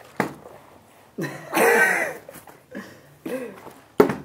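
A person coughing in several short fits, loudest about a second and a half in, with a sharp knock near the end.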